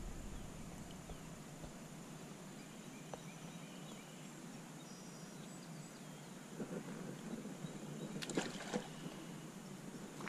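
Faint outdoor ambience, with a brief high chirp about halfway and a few soft clicks and knocks near the end.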